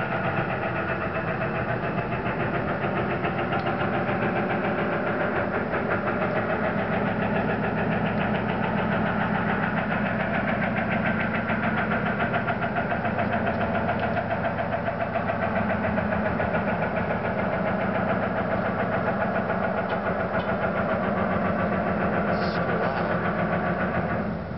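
An unidentified loud droning noise heard outdoors at night: steady, with a fast flutter and several tones stacked from low to high, starting and stopping abruptly. It is described as extremely loud.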